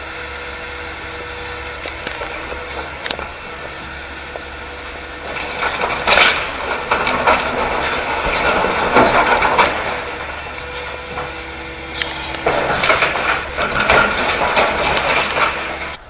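Excavator engine running with a steady hum, then two long stretches of crunching and cracking with sharp knocks as the machine breaks up the old structure, starting about five seconds in and again about twelve seconds in.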